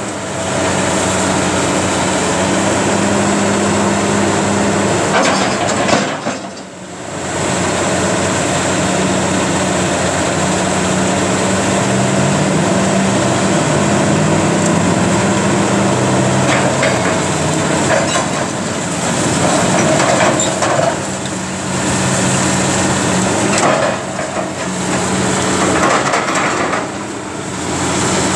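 Caterpillar 330B hydraulic excavator's diesel engine running under load, its note rising and falling as the hydraulics work, with cracking and clattering of brick, block and debris as the demolition grapple tears at the walls.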